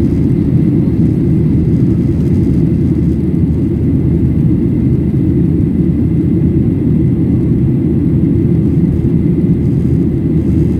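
Steady, loud cabin drone of a Boeing 737-800 in flight, heard from a window seat by the wing: its CFM56-7B turbofans and the airflow over the fuselage make an even low rumble that does not change.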